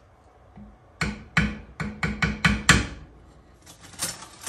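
A cooking spoon rapped against the rim of an enameled Dutch oven in a quick run of about seven strikes that speed up over two seconds, each with a short low ring. A few lighter clicks follow near the end as the spoon is set down.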